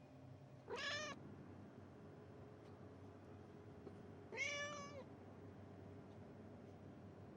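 Domestic cat meowing twice: a short meow about a second in, and a slightly longer one a few seconds later.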